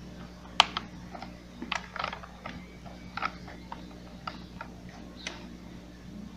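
Irregular clicks and light knocks of plastic housing parts of a steam ironing station being handled and fitted together, the sharpest click about half a second in.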